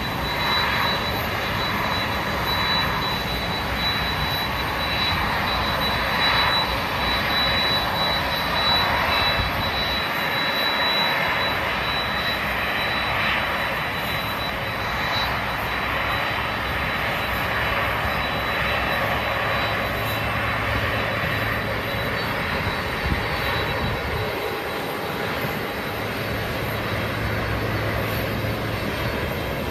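Jet aircraft engines running, a continuous steady rush with a thin high whine that fades out about halfway through.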